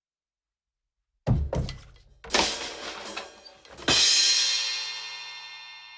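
Comedy sound effect: a heavy thud and a quick clatter, another hit a second later, then a loud crash that rings out as a long metallic decay.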